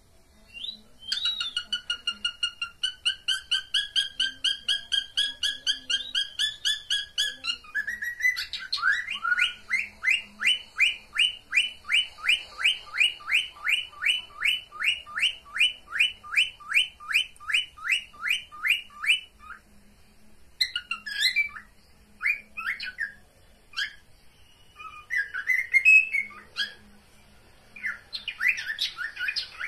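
Cockatiels calling. A run of fast repeated whistled notes lasts about seven seconds, then comes a steady series of short chirps at about three a second for some ten seconds, then scattered chirps and chatter. The uploader presents it as a cockatiel mating call.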